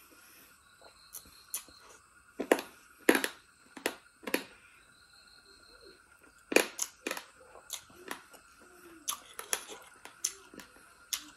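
Close-miked mouth sounds of eating: wet chewing and lip-smacking clicks of rice and duck curry, coming irregularly with several louder smacks.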